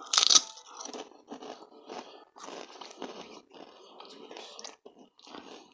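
A person biting into crunchy food close to the microphone with one loud crunch, then chewing it with a steady run of crunching chews, about two a second.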